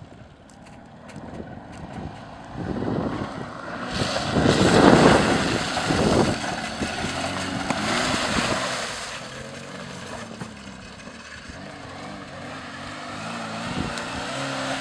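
Nissan Sentra's engine revving up and down as the car drives and slides through a mud pit. Loud rushing from the tyres churning through mud and water peaks about four to six seconds in, and again around eight seconds.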